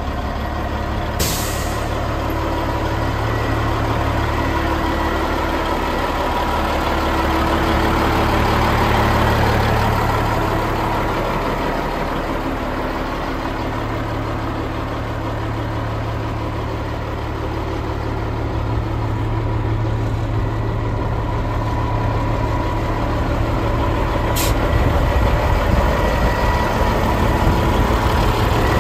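Caterpillar 16G motor grader's six-cylinder diesel engine idling steadily with a deep, even hum. Two short, sharp hisses cut through: one about a second in and one near the end.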